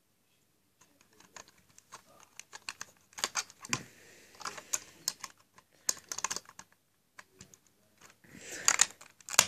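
Small Lego plastic pieces clicking and tapping as a minifigure is handled and pressed onto a Lego train: irregular quick clicks in clusters, starting about a second in and thickest near the end.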